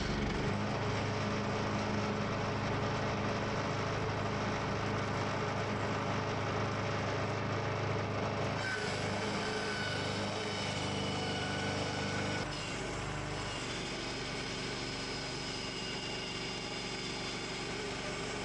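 Portable bandsaw mill's engine running steadily under load as the band blade cuts through a log. The sound changes slightly about eight seconds in and drops a little in level about twelve seconds in.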